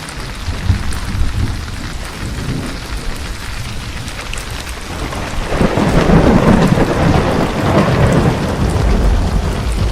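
Steady rain with thunder rumbling low underneath; about halfway through a louder roll of thunder swells up and keeps rumbling.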